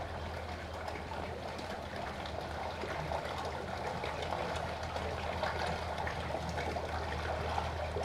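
Steady running, trickling water, with a low even hum underneath.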